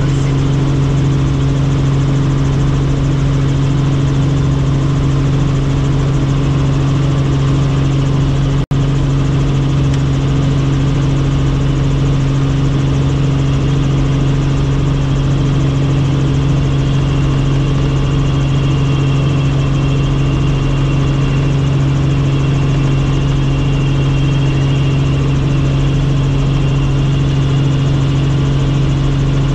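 Helicopter in flight: a loud, steady engine and rotor drone with a deep hum and its overtone. The sound drops out for an instant about nine seconds in.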